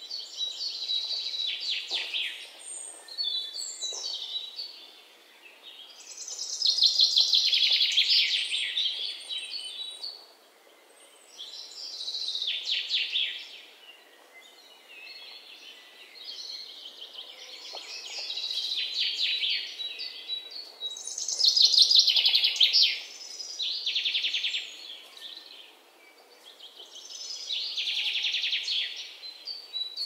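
A songbird singing in repeated bouts of rapid, high twittering, each phrase lasting a couple of seconds with pauses of a few seconds between, the loudest about two-thirds of the way through.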